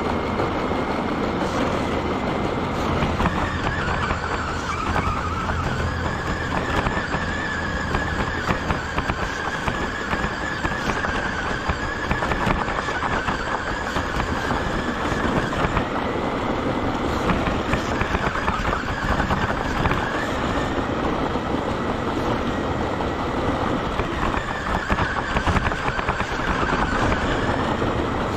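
RC car driving along a rough asphalt path, heard from on board: a steady motor and drivetrain whine that dips and rises with speed over a constant rumble and crackle of tyres on the coarse surface.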